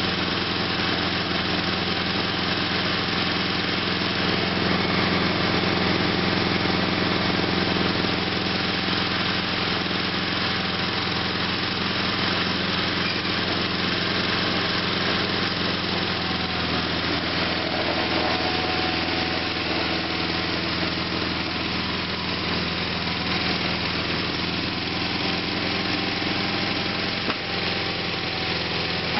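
Sears SS/16 garden tractor's Onan twin-cylinder engine running steadily, a little quieter in the second half as the tractor moves away.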